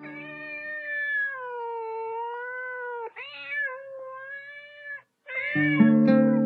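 A cat meowing in two long, drawn-out calls, the first lasting about three seconds with its pitch sagging and then rising again, the second following straight after. Music comes in about five seconds in, after a brief gap.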